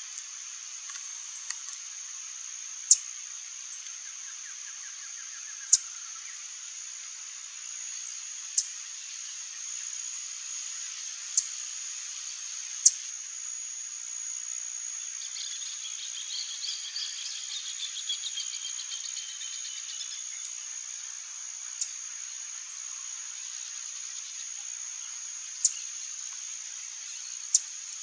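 A steady high-pitched insect drone, with about eight short, sharp high chips scattered through it as the loudest sounds. A softer rapid trill comes in around the middle.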